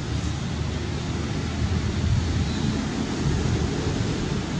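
Steady low rumble of wind buffeting the microphone, an even noise with no distinct calls.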